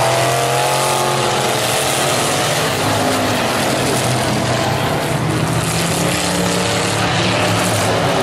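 A field of stock car engines running on a short oval track, with engines revving up in rising pitch near the start and again near the end, as the race goes back to green.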